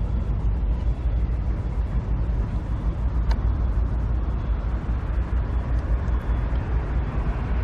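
Steady low background rumble, fluctuating quickly in level.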